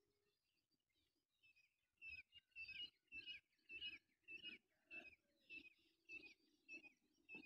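Black francolin calling: about two seconds in, a rhythmic run of some ten evenly spaced notes starts, roughly one every half second, after a few faint chirps.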